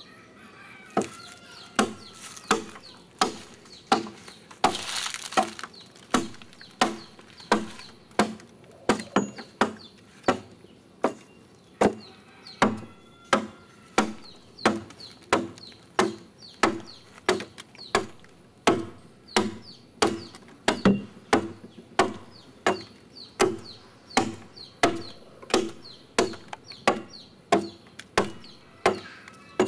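Hand adze chopping into the wood of a dugout canoe hull as it is carved out, one sharp blow after another in an even rhythm, roughly three every two seconds.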